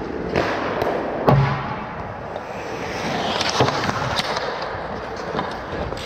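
Hockey game play: sharp clacks of sticks on the puck, several scattered through, over steady rink noise, with the loudest, a heavy bang with a deep thud, about a second in.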